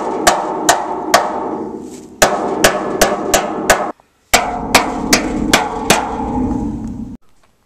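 Chipping hammer striking the corrugated steel wall of a shipping container to knock off rust scabs: sharp clanks about two and a half times a second over the wall's ringing. The hammering breaks off briefly about four seconds in and stops suddenly near the end.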